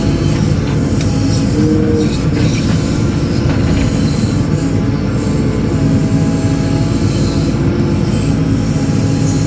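JCB 4CX backhoe loader's diesel engine running steadily under load, with a whining tone over it that shifts in pitch every second or two as the machine digs.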